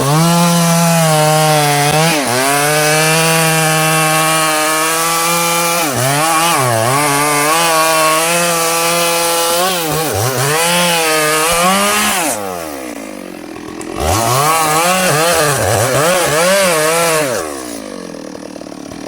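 Stihl two-stroke chainsaw cutting into a teak trunk at full throttle, the engine pitch dipping now and then under load. About twelve seconds in it drops to idle, then revs up and down several times before settling back to idle near the end.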